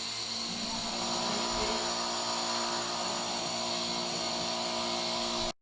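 Toaster oven running with its rotisserie turning: a steady motor whir with several steady hum tones. It stops suddenly near the end.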